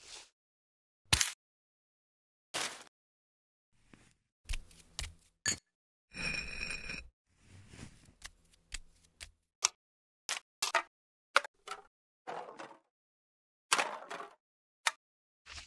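A string of short, separate taps, clicks and set-down sounds, with dead silence between them: added foley for objects being placed on a plate and countertop in stop motion. About six seconds in comes a longer sound with a ringing tone.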